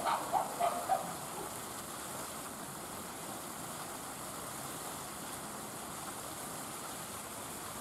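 Steady outdoor background noise, an even hiss with nothing standing out. In the first second it is topped by a quick run of short, high-pitched calls that end abruptly.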